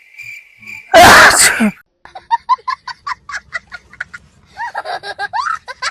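A steady high tone, then a loud sneeze about a second in, followed by a run of short rhythmic laughs.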